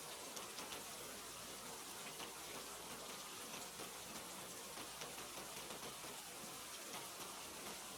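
Steady rain falling, a constant hiss with the patter of many individual drops.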